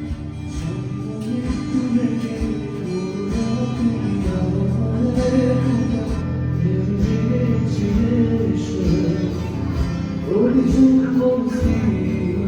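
Live music: a singer with instrumental accompaniment over a steady beat.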